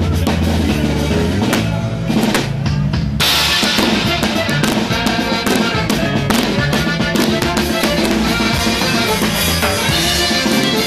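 Live band music led by a drum kit played hard, with bass drum, snare and cymbal hits over a moving bass line. About three seconds in, the sound fills out and gets brighter as more instruments come in.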